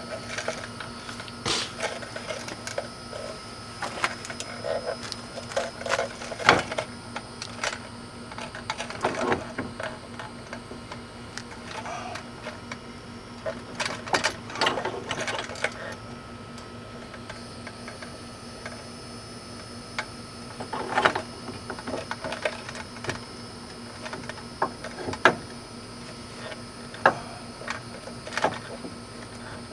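Scattered metal clicks and knocks from a car wheel hub being worked onto the axle splines, some in quick clusters and a few sharper single strikes near the end, over a steady faint hum.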